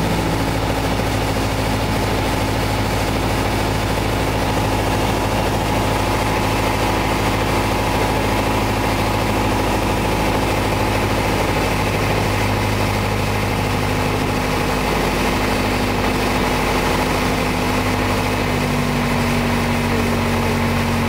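Steady drone of a Piper PA-28-181 Archer's four-cylinder Lycoming engine and propeller in flight, heard inside the cabin. The engine note changes slightly about eighteen seconds in.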